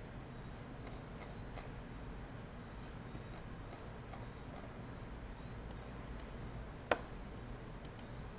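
Computer mouse being worked: scattered faint clicks and scroll-wheel ticks, with one louder click about seven seconds in, over a low steady hum.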